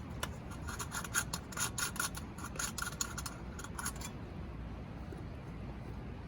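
Steel struck in quick scraping strokes against a flint stone to throw sparks for lighting char cloth: an uneven run of a dozen or so rasping strikes lasting about four seconds, then stopping.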